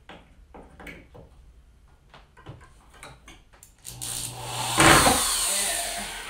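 Light clicks and knocks from small clamps being handled. About four seconds in, a cordless drill starts and bites into the wooden base for about two seconds, loudest near the start of the cut and then easing off.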